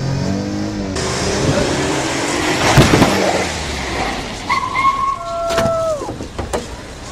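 A car engine revving up, heard from inside the cabin, then road and wind noise from a passing car with a couple of loud knocks about three seconds in. Toward the end come steady high tones that bend down in pitch as they stop.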